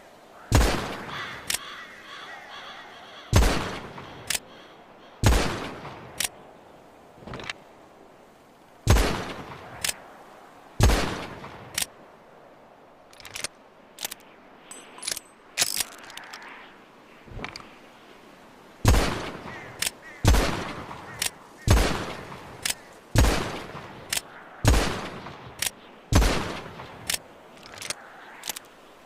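Colt Navy revolver firing about a dozen single shots, loud sharp cracks each with a short ringing tail, spaced irregularly from about a second and a half to several seconds apart, with fainter clicks in between.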